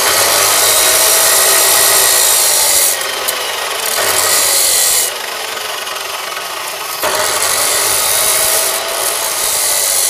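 Electric grinder's abrasive wheel grinding the steel teeth of a bicycle freewheel sprocket, a loud hissing rasp. The grinding eases off for about two seconds around the middle and then starts again at full level.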